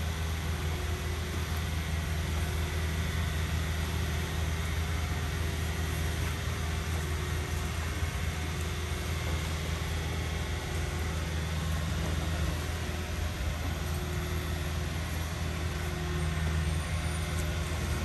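A crane barge's engine runs steadily with a low, even hum while the crane works.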